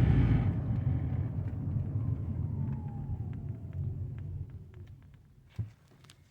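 Low buzzing rumble from a 2013 Ford Fusion Hybrid dying away over a few seconds, with a faint whine falling in pitch as it fades. This is the buzzing/vibrating noise the owner is troubleshooting. A single click comes near the end.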